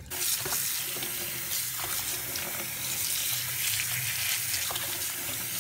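Kitchen tap running in a steady stream into a bowl of water while a hand swishes fiddlehead ferns through it, rinsing them.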